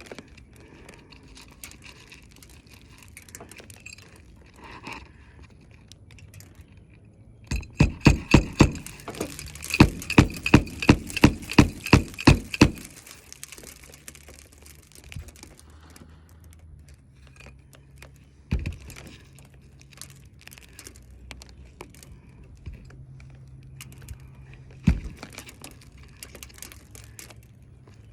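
Hammer driving nails into a roof shingle: about a dozen quick, sharp strikes in two runs between about 7 and 13 seconds in, followed later by a couple of single knocks.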